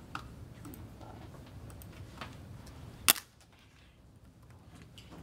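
One loud, sharp click about three seconds in, with a few fainter clicks and taps before and after it over a low room hum.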